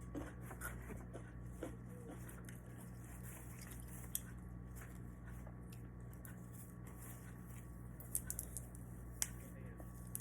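A person chewing food quietly, with faint wet mouth sounds and a few sharp clicks of utensils or dishes, once about four seconds in and several near the end, over a steady low hum.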